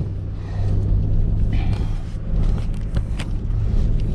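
Car driving, heard from inside the cabin: a steady low engine and road rumble, with a few sharp clicks or rattles.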